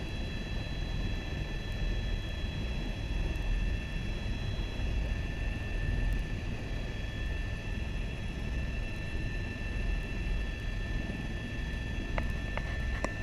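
Tour helicopter running steadily: a constant low rumble with several steady high-pitched tones over it, and a few faint clicks near the end.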